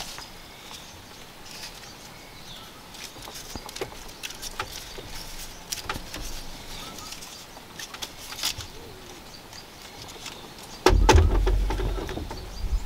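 Light clicks and creaks of a hand-woven bamboo sieve basket being turned and flexed in the hands. About 11 seconds in comes a louder low thump and rustle as it is set down on a floor of bamboo poles.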